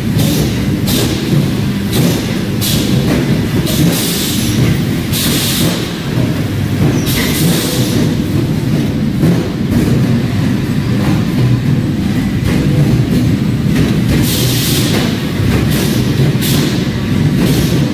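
Arc welding: a continuous crackling, sputtering buzz from the arc, broken by irregular brief louder hissing flares.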